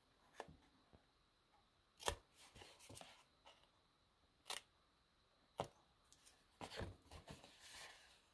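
Small craft scissors snipping cardstock: a handful of short, sharp snips a second or two apart, cutting mitered corners off scored flaps.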